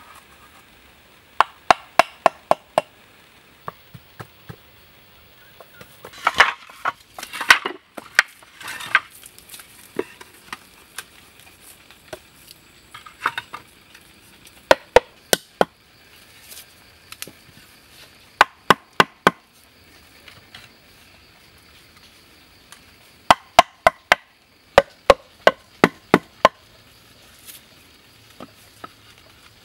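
A knife chopping green bamboo: sharp, hard strikes in quick bursts of four to six, several a second, with pauses of a few seconds between bursts.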